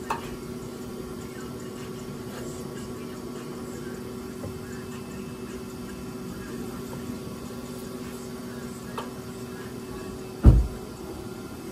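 Steady low hum with a few light clicks, then one loud thump near the end as the crash-damaged front fender of a 2012 Volkswagen Passat is pulled on by hand.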